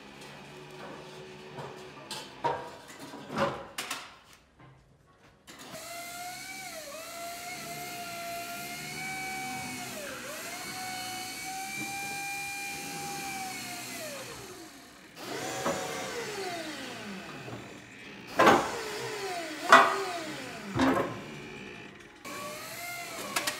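STILL electric forklift's motors whining as the truck and its forks are worked, the pitch dipping and gliding and stopping briefly about four seconds in. Near the end come three sharp knocks, each followed by a falling whine.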